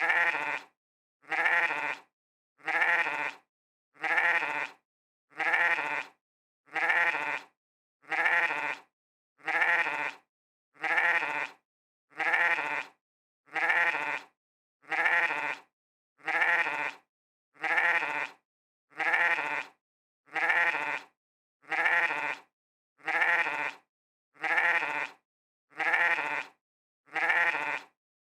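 A sheep bleating 'meh' over and over, the same short call repeated at even intervals about every 1.3 seconds, with silence between calls.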